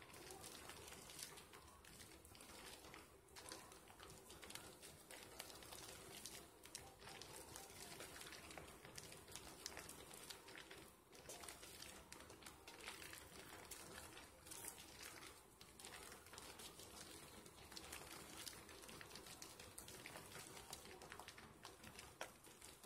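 Thick lather of Dove and Caress soap slivers being squeezed and kneaded between wet hands: faint, continuous wet squishing dotted with fine crackles of foam.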